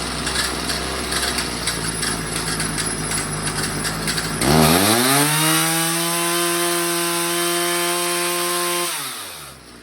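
Homelite two-stroke chainsaw with a freshly fitted chain cutting wood. About halfway through it comes free and revs up to a steady high-pitched wide-open scream, held for about four seconds. Near the end the throttle is let off and the revs fall away.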